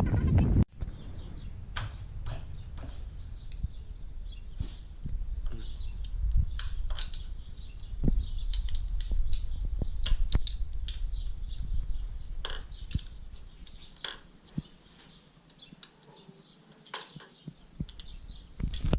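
Scattered light clicks and clinks over a low rumble, with a quieter stretch near the end.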